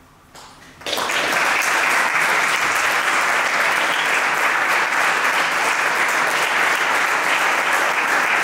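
Small audience clapping: the applause starts suddenly about a second in and goes on at an even level.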